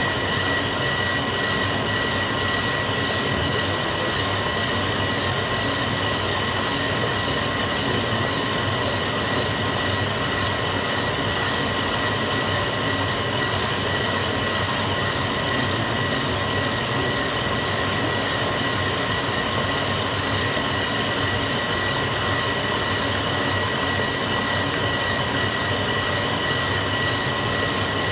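Bowl-lift stand mixer running steadily, its beater working a thick butter-and-sugar vanilla cake batter; the motor gives an even, unchanging whine.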